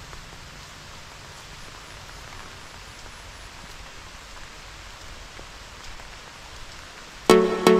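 Steady hiss and patter of light rain falling on trees and grass. About seven seconds in, electronic music with a strong beat cuts in suddenly.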